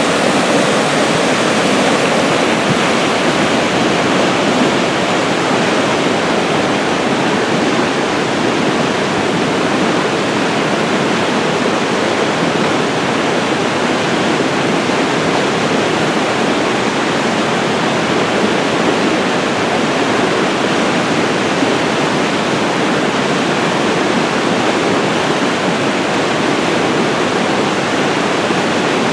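Flood-swollen brook rushing through whitewater rapids after a thaw and downpour: a loud, steady rush of fast water.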